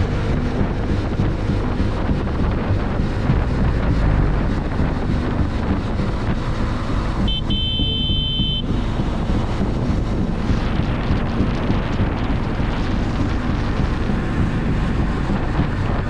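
Motorcycle riding with wind buffeting the microphone, a steady rush of engine and wind noise. About seven seconds in, a brief high steady tone sounds for a second or so.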